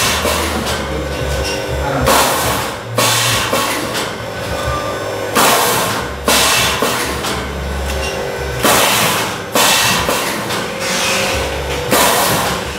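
Automatic cup water filling and sealing machine running through its cycle, with a sudden loud noisy burst about every three seconds as each set of eight cups is processed, over background music.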